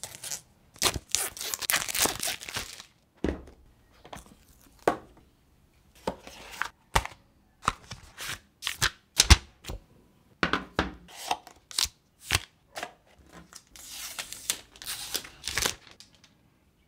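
Close-up packaging sounds: a snap-off utility knife slitting the plastic wrap on a phone box, with rustling and tearing about a second in. Then a run of sharp taps, clicks and rustles as the cardboard box and its inserts are opened, and another stretch of rustling near the end.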